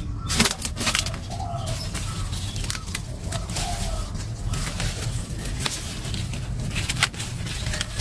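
A dove cooing, a low call repeated a few times, over a steady low rumble. Several sharp snaps and rustles, the loudest a little under half a second in and about seven seconds in, from an ear of corn being picked off its stalk.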